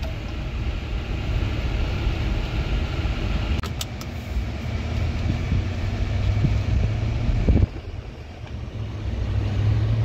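Ram pickup truck driving, heard inside the cab: a steady low engine and road rumble. A few brief clicks come about four seconds in, and the rumble dips for a moment just before eight seconds.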